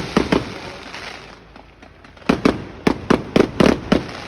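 Fireworks going off in a rapid series of sharp bangs. There are three close together at the start, a brief lull, then a quick burst of about eight more in the last two seconds.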